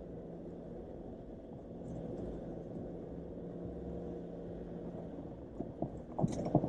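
Jeep Wrangler JL running at low speed, heard from inside the cabin as a steady low rumble while it crawls along an offroad trail, with a few sharp knocks near the end.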